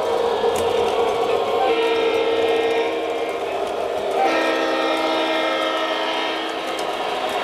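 Sound-equipped model Santa Fe diesel locomotive sounding its horn in two long blasts, the first starting near two seconds in and the second just after four seconds, over the steady running sound of the model train.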